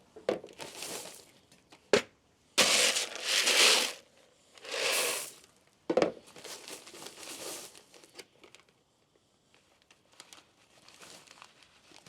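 Gallon-size plastic bags of shelled corn being handled, crinkling in several bursts about a second long, with a couple of sharp clicks; the rustling fades to small scattered sounds in the last few seconds.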